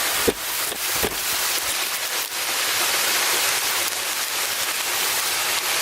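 Waterfall rushing in a steady hiss, with a few brief knocks in the first couple of seconds.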